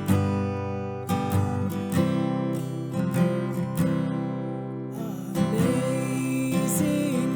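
Acoustic guitar strummed in a steady rhythm. About five seconds in, a singing voice comes in over it.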